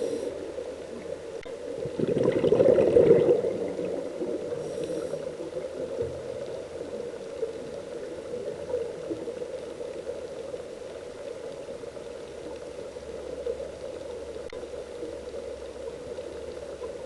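Underwater bubbling of a scuba diver's exhaled air heard through the camera housing, swelling loudest about two to three seconds in, then settling into a steady gurgling hiss.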